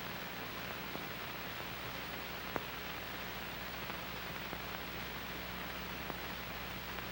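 Steady hiss of an old film soundtrack transfer, with a low electrical hum underneath and a few faint clicks, the sharpest about two and a half seconds in.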